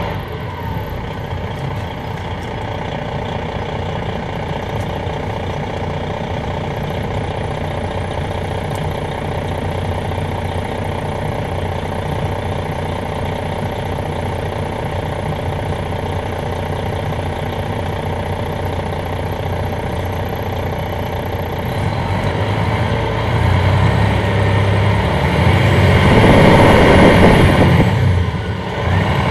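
Detroit Diesel Series 60 diesel engine of a 2001 MCI D4000 coach, heard from the rear seats inside the bus. It runs steadily, then grows louder from about three-quarters of the way in, with a brief drop in sound just before the end.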